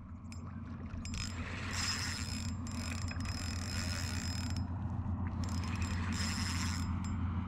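Star-drag baitcasting fishing reel clicking and whirring steadily as a hooked carp is played. The drag is set loose to protect droppers tied with 0.25 mm nylon.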